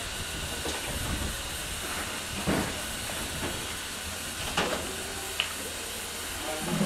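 Narrow-gauge steam locomotive standing with steam hissing steadily from it. A few short knocks sound partway through.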